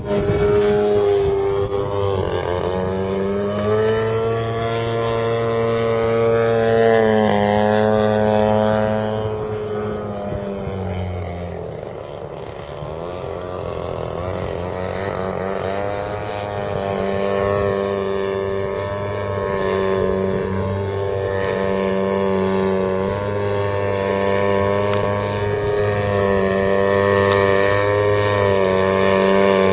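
Single-cylinder two-stroke petrol engine and propeller of a large RC aerobatic plane running steadily, with the pitch shifting as the throttle and flight path change; it drops and quietens about eleven seconds in, then picks up again and holds steady.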